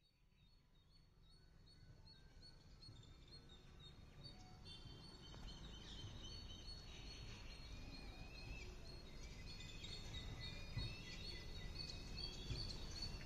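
Several birds chirping and calling, with quick repeated high notes and overlapping calls over low background noise. The sound fades in from near silence and grows steadily louder.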